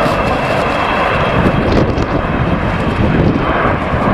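Avro Vulcan bomber's four Rolls-Royce Olympus jet engines during a display pass: a loud, steady jet rush with a thin high whine running through it.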